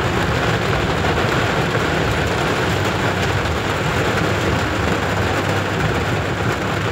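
Heavy rain on a moving car and tyres on a wet road, a steady even hiss heard from inside the cabin.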